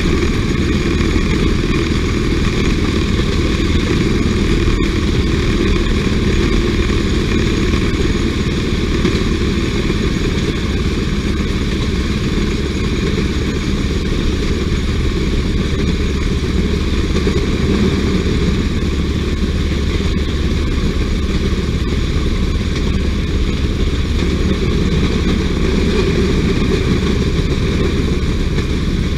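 Motor jigger running steadily along the rails, its small engine holding an even, unchanging note.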